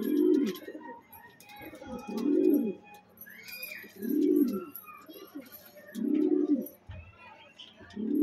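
Domestic pigeon giving its display coo: about five coos evenly spaced two seconds apart, each rising and then falling in pitch. It is the courtship coo of a pigeon in breeding condition, bowing and turning as it calls.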